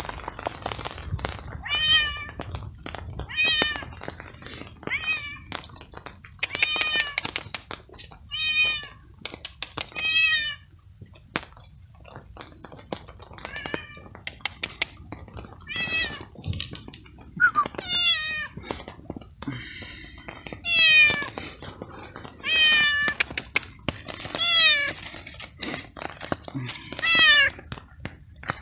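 A hungry stray cat meowing over and over, short calls that rise and fall in pitch, about one every one to two seconds, coming closer together in the second half. Sharp little clicks and taps sound between the meows.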